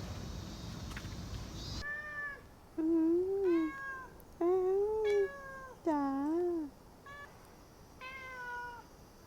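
A cat meowing repeatedly: six meows with rising and falling pitch, the middle three loudest and longest. Before them, a steady rushing noise cuts off abruptly about two seconds in.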